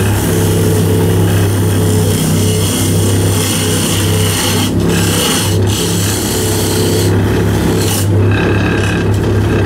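Wood lathe running with a steady motor hum while a turning tool scrapes against the spinning wooden blank, a rough rasping hiss that drops out briefly a few times as the tool comes off the wood.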